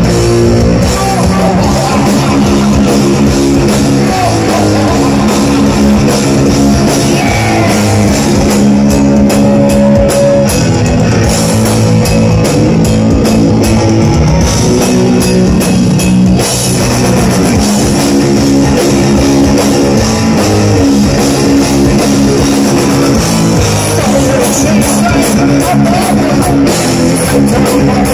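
Heavy metal band playing live: loud distorted electric guitar riffing over a drum kit.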